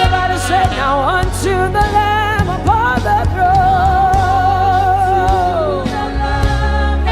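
Live gospel worship music: a singer's wordless runs and a long held note with vibrato that slides down near the end, over a steady band accompaniment.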